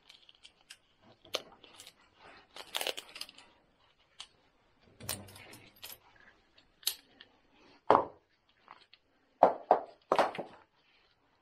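Handling noise: scattered metallic clicks, taps and short rustles as an air hose, its coupling and a metal rod with a fitting are worked by gloved hands, with a few louder knocks near the end.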